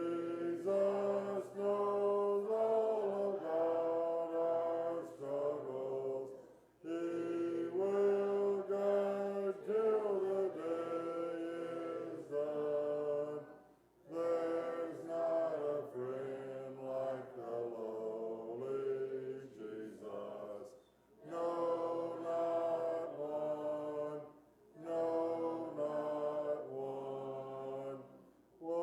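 Congregation singing a hymn a cappella in several voice parts, in held phrases broken by short pauses for breath every few seconds.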